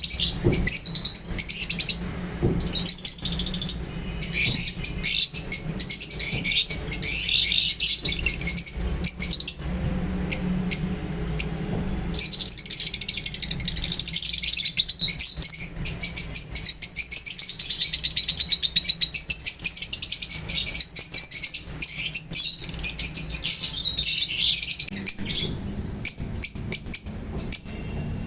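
Small pet parrots chirping and chattering continuously in fast, high, twittering runs, busiest and most rapid in the second half.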